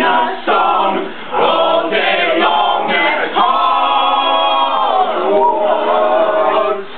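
Several voices singing together in a chant, with one long held note about halfway through.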